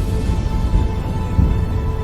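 Dark, ominous soundtrack music: held tones over a loud, deep rumbling low end.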